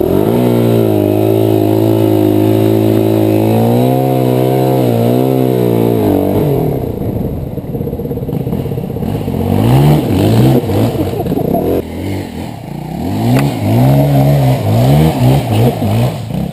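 Yamaha WR four-stroke single-cylinder dirt bike engine running at a steady throttle, then revving up and dropping back repeatedly in quick rising sweeps as the bike accelerates along the trail in the second half.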